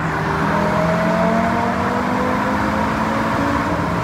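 Audi RS3's turbocharged five-cylinder engine pulling through a tunnel, heard from inside the cabin over steady tyre and wind noise. The engine note rises gently for the first couple of seconds, then holds.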